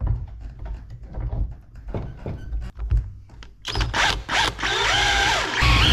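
A run of knocks and clunks as the hollow pole is handled and clamped in a small bench vise. About three and a half seconds in, a cordless drill starts up and runs, drilling a bolt hole through the pole, getting louder near the end.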